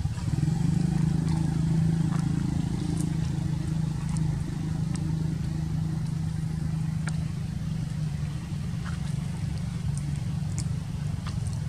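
Steady low motor hum, like an engine running, with a few faint sharp ticks scattered over it.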